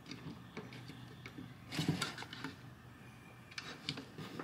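Faint clicks and rustling of a wire lead being handled and pushed into the output terminal of a small DC-DC charger, with slightly louder clicks about two seconds in and again near the end.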